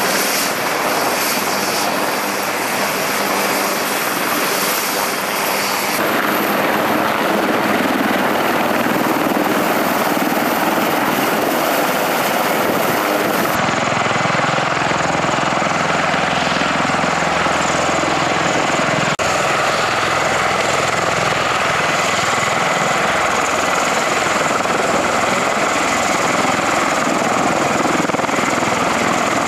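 Military rotorcraft running on an airfield: the turbine whine and rotor noise of an AH-1Z Viper attack helicopter, then later an MV-22 Osprey tiltrotor. A loud, steady blend of engine whine and blade noise that shifts abruptly three times as the shots change.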